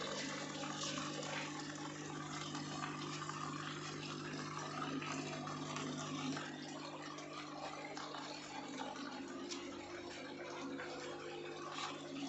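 Water running and trickling through the PVC pipes of a homemade hydroponic system, over a steady low hum.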